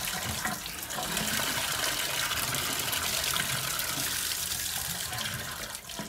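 Bathtub tap running steadily, water splashing into the tub and draining freely down the open drain with its stopper out, flushing the freshly cleared drain pipe.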